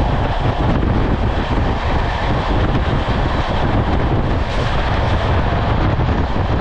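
Express train running through a station at speed, heard from the side of the coach: a steady rush of wind on the microphone over the train's low running rumble.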